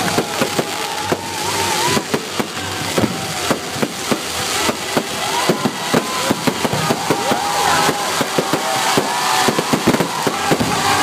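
A fireworks display with rapid, overlapping bangs and crackles, mixed with whistling tones.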